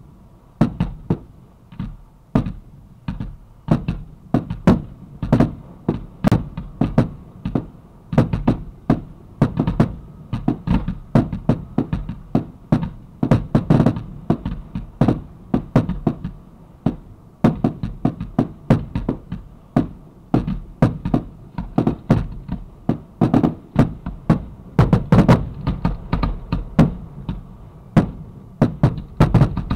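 Fireworks going off in rapid succession: shells launching from the ground and bursting overhead, a steady stream of sharp bangs about two a second, some coming in quick clusters.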